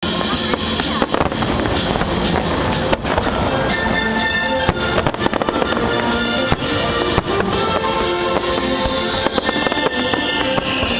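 Fireworks bursting in quick, irregular succession over loud music, with a falling whistle starting about eight seconds in.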